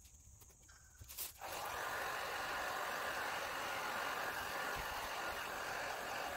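A corded heat gun switches on about a second and a half in and then runs with a steady blowing hiss, heating window tint film to shrink it to the curve of a car's rear glass.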